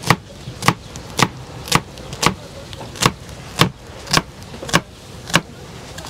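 Kitchen knife slicing an onion on a plastic cutting board: the blade knocks against the board in a steady rhythm of about two cuts a second.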